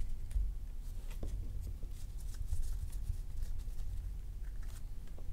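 Topps baseball trading cards being handled and slid past one another: faint scattered rustles and light ticks over a low steady hum.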